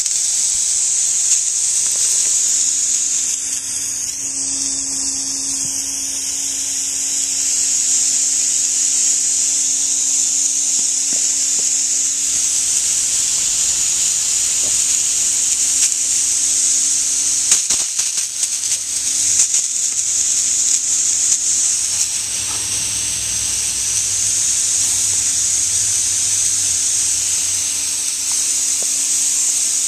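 Garden hose nozzle spraying a steady jet of water: a loud, continuous hiss with a low steady hum beneath it, and a few clicks a little past the middle.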